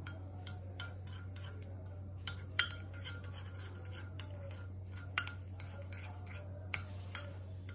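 A utensil clinking and scraping against a bowl while milk is stirred into cake batter: irregular light taps with three louder clinks, over a steady low hum.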